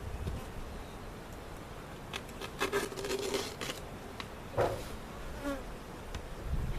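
Honey bees buzzing, with one bee flying close to the microphone for about a second midway and a few light taps and clicks around it.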